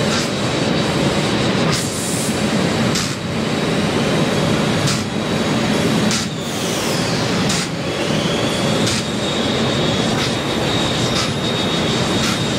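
Steady machine-shop noise from CNC milling machines running on the floor, with a thin high whine held throughout and a few short knocks from parts and tools being handled.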